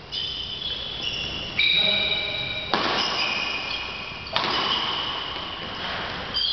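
Badminton play in a sports hall: four sharp racket strokes about a second or more apart, each trailing off in the hall's echo, with high-pitched squeaks of court shoes on the floor between them.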